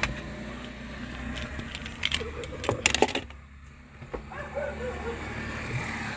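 Metallic jingling and clinking in a few short bursts, the loudest cluster about three seconds in.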